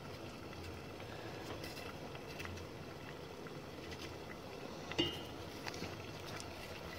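Water heating in a stainless steel pot on the stove, just short of the boil, with faint scattered ticks of small bubbles forming. A single light click about five seconds in.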